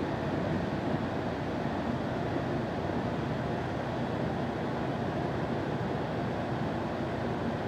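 Cabin noise inside a Solaris Urbino 18 articulated city bus under way: a steady mix of engine and road noise with no separate events.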